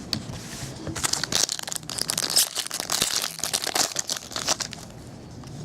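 Crinkling and crackling of card packaging and wrappers as trading cards are handled, a dense run of small crackles from about a second in until near the end.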